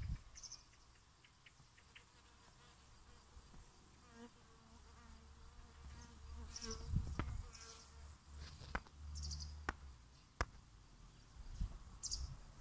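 A flying insect buzzing close by, a steady hum that comes in about four seconds in and fades after a few seconds. There are short high chirps now and then and a few sharp clicks.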